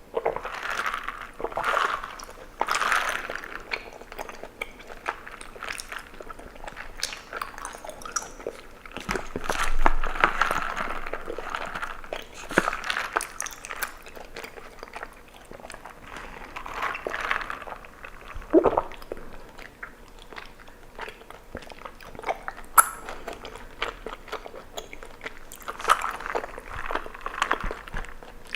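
Bubble tea being eaten: chewing of tapioca pearls and gulping, with sticky, wet mouth clicks that come in bursts every few seconds.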